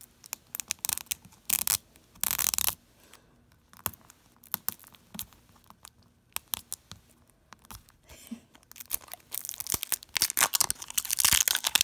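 Sealed plastic shell of an LOL Surprise toy ball being peeled and torn open by hand: scattered crinkles and two short tearing sounds in the first few seconds, a quieter stretch with faint ticks, then dense crinkling near the end.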